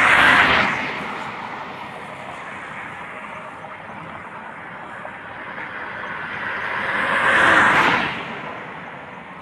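Cars passing on a concrete highway: tyre and engine noise swells and fades as one car goes by at the start and another about three-quarters of the way through, with a steady traffic hiss between.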